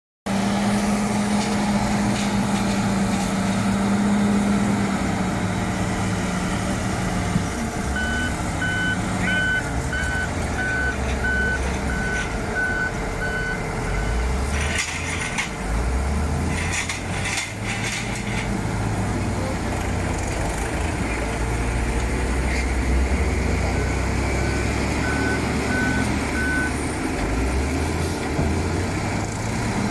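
Diesel engines of a wheel loader and a tractor running in a sand yard. A reversing alarm beeps about twice a second for several seconds, once about a third of the way in and again near the end, and a few short bursts of hissing noise come about halfway through.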